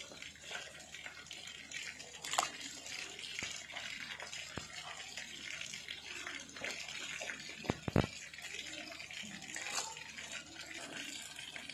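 Pot of water with chunks of chayote in it heating on a gas stove, fizzing and bubbling softly as it nears the boil. A few sharp clicks cut through, one about two seconds in and a louder pair about eight seconds in.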